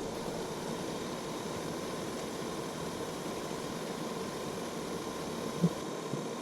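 Steady mechanical hiss with a faint, even hum, and one brief soft knock about five and a half seconds in.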